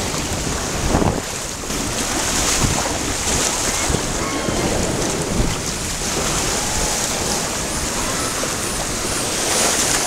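Water rushing down a raft water slide, with wind buffeting the microphone as the raft speeds through the curves: a loud, steady rushing noise throughout.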